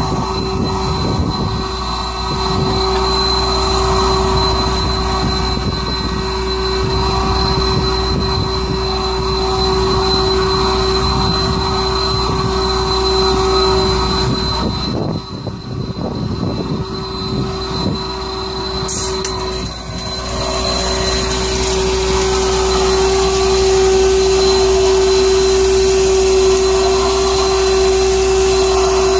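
Heavy machinery running steadily, with a constant high whine over a rattling rumble; the sound dips and changes about halfway through.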